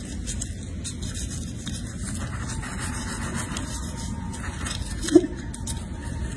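Toothbrush bristles scrubbing back and forth over a monkey's teeth, a soft rubbing over a steady low rumble. One short, loud blip comes about five seconds in.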